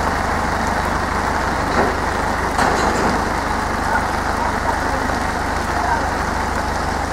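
Tractor diesel engine idling steadily, under a hiss of falling rain, with a few brief knocks about two to three seconds in.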